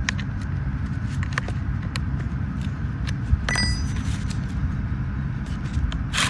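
Small metal clicks and one short metallic clink from handling the mini chainsaw's bar, chain and tightening wrench, over a steady low rumble.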